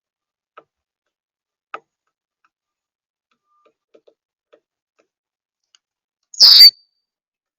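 Birds at a feeder: a few faint ticks and taps, then one sudden, very loud burst of noise close by, lasting under half a second about six and a half seconds in.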